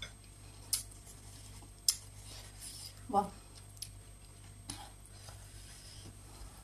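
Fingers mixing rice on a plate: a few sharp clicks and light scraping against the dish, with one short vocal sound from the eater about three seconds in.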